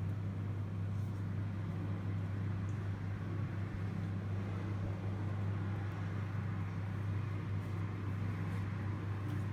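A steady low hum that holds one pitch throughout, with a few faint ticks.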